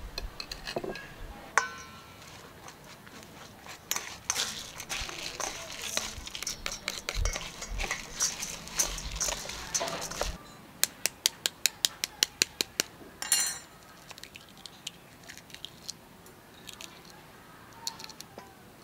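A metal spoon mixing uncooked sticky rice with diced vegetables in a stainless steel bowl: the grains rustle and the spoon scrapes and clinks on the bowl. About two-thirds of the way in there is a quick run of sharp clicks, about five a second.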